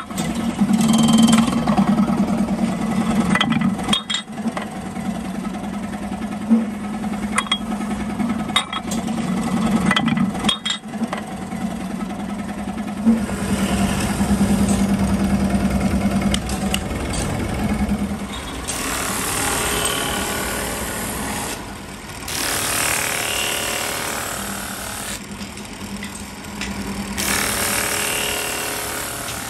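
Workshop machinery: an electric motor hums steadily, with scattered sharp knocks through the first half. Later a spinning drum sander rasps in three bursts of a few seconds each, as a wooden block is pressed against the abrasive drum.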